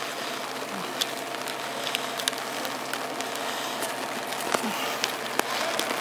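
Steady rain falling on a wet street, a continuous hiss with scattered sharp ticks.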